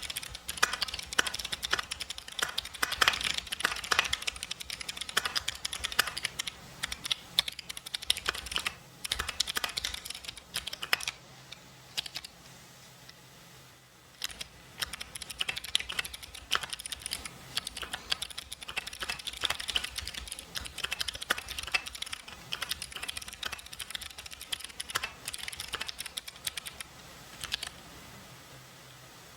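Mechanical keyboard with clicky jade switches being typed on in steady runs of clicking keystrokes. A pause of about three seconds comes near the middle.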